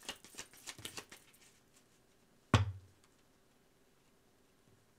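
Tarot cards being shuffled: a quick run of small clicks that fades out after about a second and a half, then a single sharp knock with a low thud about two and a half seconds in.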